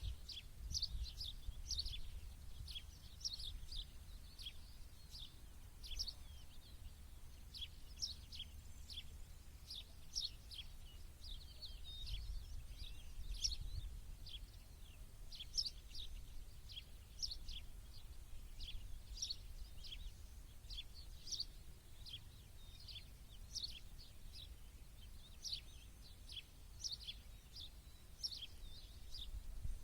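Small songbirds chirping continuously, many short high calls in quick succession, over a steady low outdoor rumble.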